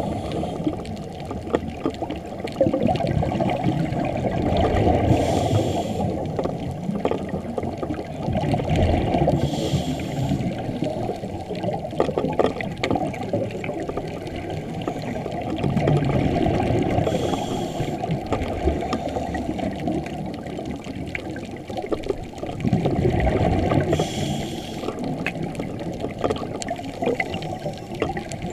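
Scuba breathing heard underwater: four short regulator hisses on the inhale, several seconds apart, between longer swells of bubbling rumble from exhaled air.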